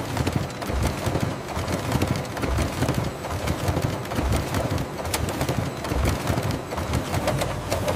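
Label printing press running: a steady mechanical clatter of many quick low knocks and clicks as the paper web feeds through the rollers.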